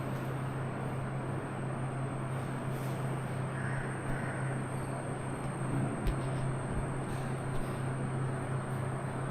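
Steady low hum with an even background hiss, and a short sharp click about six seconds in followed by a couple of fainter ones.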